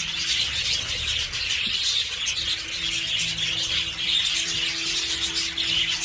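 A flock of budgerigars chattering and chirping without a break, a dense high twittering. Underneath it runs background music with long held low notes.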